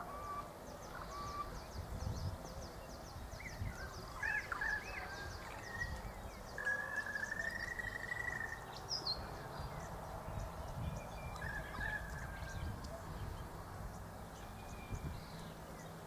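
Birds calling: a few short rising whistled calls, then one long level whistle lasting about two seconds near the middle, over a faint low rumble.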